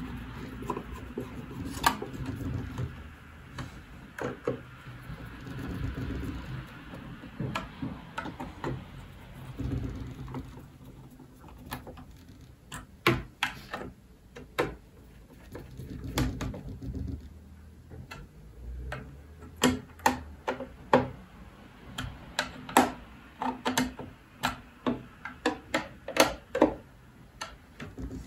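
Hand screwdriver turning screws to fasten the battery-holding bracket back inside a UPS, with clicks and taps of the tool, screws and plastic parts. The clicks are scattered at first over a low rumble of handling, then come in quick runs from about halfway on.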